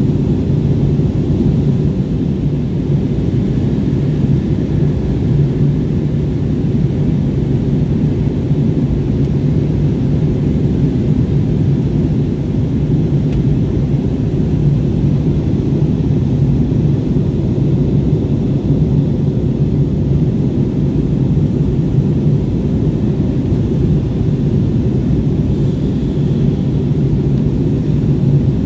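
Jet airliner cabin noise heard from a window seat over the wing: the engines and airflow make a steady low drone with a constant hum underneath.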